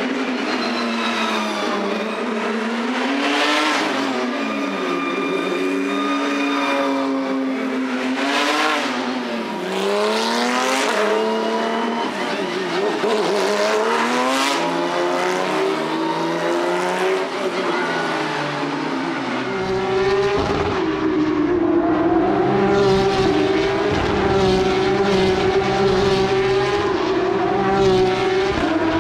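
Race car engines at speed, several cars passing one after another, their pitch rising and falling as they rev and shift. From about twenty seconds in, a steadier, deeper engine note takes over.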